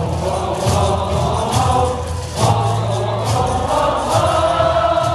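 Baseball stadium crowd singing a cheer song together in unison, over steady cheering-section drum beats and sharp rhythmic claps.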